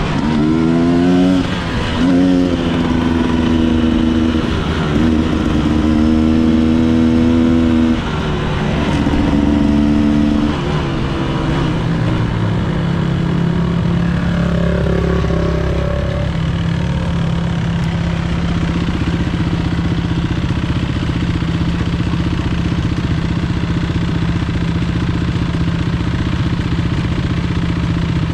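Enduro motorcycle engine pulling through the gears, its pitch rising several times, then holding a steady note from about eleven seconds on.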